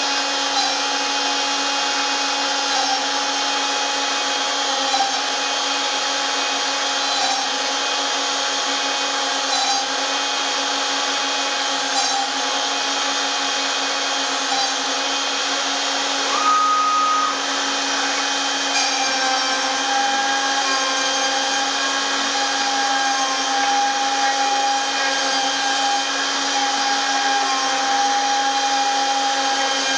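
Homebuilt CNC router's spindle running steadily at about 16,500 rpm while a 4 mm three-flute cutter pockets MDF, a constant whine with faint ticks every couple of seconds. A short higher tone sounds briefly about 16 seconds in.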